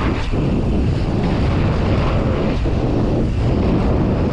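Loud wind buffeting the microphone of a mountain bike rider moving at speed, a steady rushing rumble.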